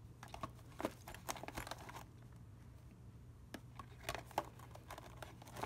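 Clear plastic pouches of a travel roll-up bag crinkling and rustling as skincare tubes and bottles are pushed into them, with scattered light clicks and taps. The handling comes in two spells with a short lull in the middle.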